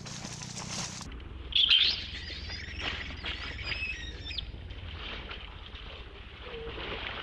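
Infant long-tailed macaque crying: a sharp, loud shriek about a second and a half in, then a wavering high-pitched cry that rises and falls for about two seconds before trailing off. A steady background hiss runs beneath it.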